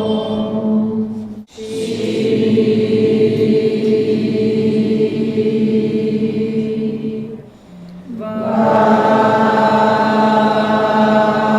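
Voices chanting a mantra in long, held tones, breaking off briefly about a second and a half in and again for a breath near eight seconds before the chant resumes.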